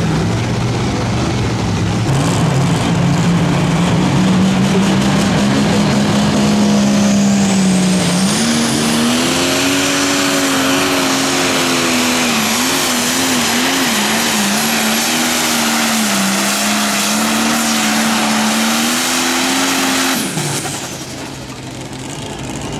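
Diesel engine of a John Deere light pro stock pulling tractor running at full throttle under the load of the sled, its pitch rising and then wavering mid-pull as engine speed surges and sags. A thin high whine climbs in over it about seven seconds in. The engine note drops suddenly about twenty seconds in, as the pull ends.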